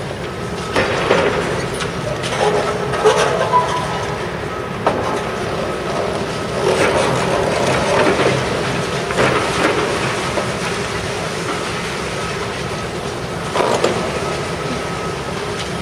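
Demolition excavator working a reinforced-concrete building: irregular cracking, crunching and clattering of breaking concrete and falling debris over a steady mechanical rumble. The cracking comes in bouts, heaviest in the first few seconds and around the middle, with one more near the end.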